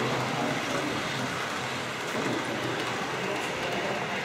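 Model trains running on a large layout's tracks: a steady rolling, rushing noise of many small wheels on rails, blended with the hum of the exhibition hall.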